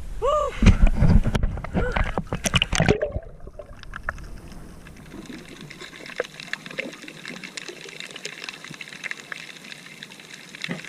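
Water splashing and trickling: a few sharp splashes in the first three seconds, then a steady trickle and slosh with many small drips and clicks.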